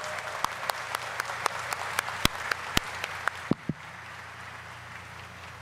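Audience applauding, individual claps standing out, the clapping dying away about three and a half seconds in and leaving a low steady hum.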